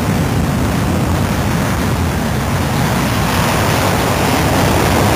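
Cartoon sound effect of a steady, loud rushing roar, like a rocket or a burning object plunging through the air.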